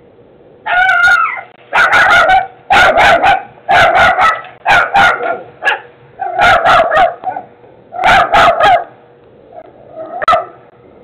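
A dog barking loudly in quick runs of two or three barks, one run after another, with a few fainter barks near the end: a guard dog's alarm barking at an intruder.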